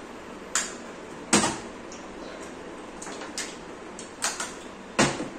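A series of short, sharp knocks and clatters of hard objects, about six in all, some single and some in quick pairs, the loudest about a second in and near the end.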